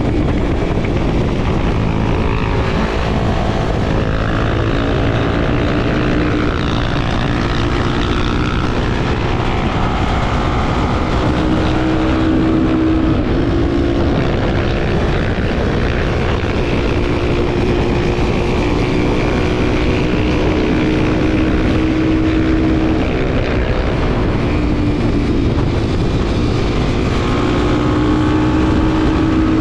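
Honda XR250 Tornado single-cylinder four-stroke engine running under way, its note rising and falling and holding steady for stretches as the throttle changes, with heavy wind rush over the microphone.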